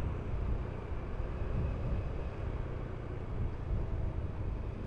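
Wind rumbling steadily on a helmet camera's microphone while riding a 2018 Honda Beat scooter down a street, with the scooter's engine and tyre noise running underneath.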